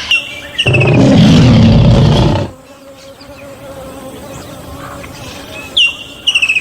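Animal sounds: a short high chirping series, then a loud low buzz for about two seconds, a quieter stretch, and a rapid high trill near the end.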